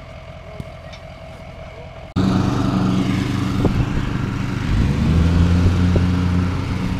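A motor vehicle's engine running steadily. About two seconds in it suddenly becomes much louder, and around the middle its pitch rises a little, as it picks up revs.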